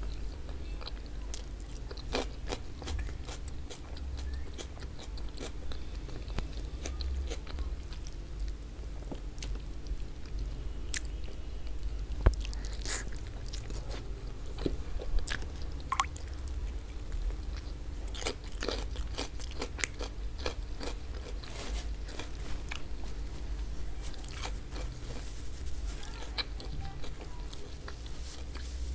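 Close-miked eating sounds: wet chewing and biting on stewed oxtail in tomato sauce, with many short mouth clicks and smacks and a few sharper, louder clicks around the middle.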